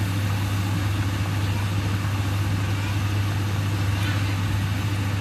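A steady low mechanical hum, even throughout, with a low rumbling noise beneath it.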